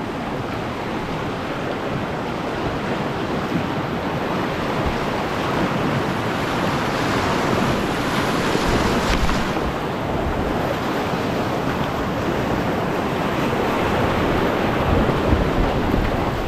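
Whitewater rapids rushing steadily, heard up close from a kayak running them, a little louder midway and again near the end.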